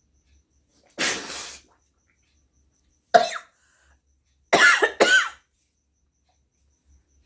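A woman blowing her nose hard without a handkerchief: one forceful, unpitched blast lasting about half a second. It is followed by three short explosive bursts of breath with her voice in them, forced sneezes or coughs, the last two in quick succession.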